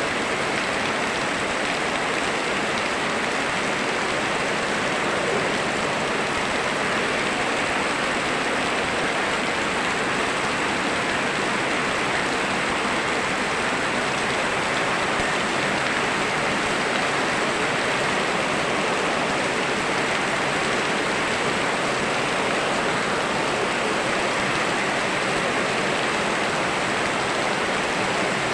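Steady rain mixed with rushing river water: an even, unbroken wash, with no single drops or splashes standing out.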